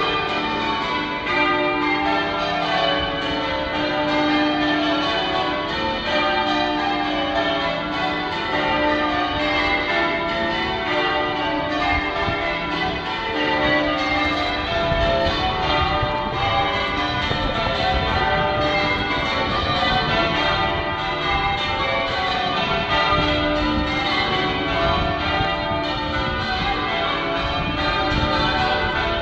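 Manchester Cathedral's church bells change ringing: a full ring of bells striking one after another in quick, overlapping succession, sounding continuously with no pause.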